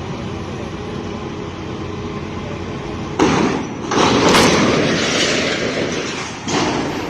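A steady engine hum from heavy machinery, broken about three seconds in by a sudden loud crash. A second, louder rushing crash follows and fades over about two seconds, and a shorter third crash comes near the end.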